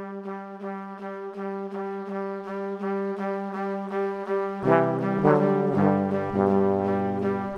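Background music: a held pitched note pulsing to a steady beat, with a bass line and fuller chords coming in about halfway through.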